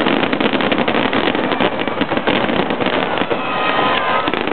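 Fireworks barrage: many shells bursting at once, making a dense, continuous crackle of countless small reports.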